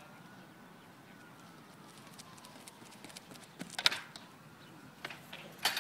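Pole vaulter's approach run: faint quick footfalls on the runway, then a sharp knock about four seconds in as the pole is planted in the box, and another knock near the end as the vault finishes on the landing pit.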